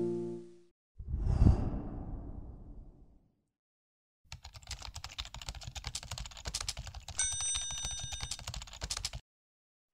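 End-screen sound effects: a sudden whoosh-like hit about a second in that dies away over two seconds, then after a short gap several seconds of rapid typing-like clicking, with a bell ringing briefly over the clicks partway through.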